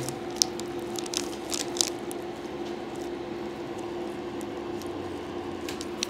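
Hands and skin rustling against the patient and the treatment table as the neck is taken hold of for an adjustment, with a few sharp clicks, the strongest about half a second and near two seconds in, over a steady room hum.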